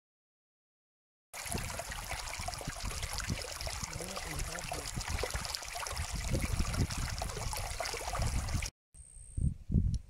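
Shallow stream water running and splashing over rocks, a steady rush that starts abruptly about a second in and cuts off shortly before the end. After it comes a much quieter stretch with a few low thumps.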